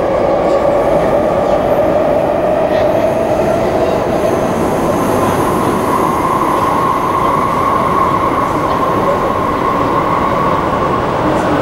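MTR Kwun Tong Line electric train running away from the station into the tunnel: a loud, steady rumble with a held tone over it that moves higher in pitch about halfway through.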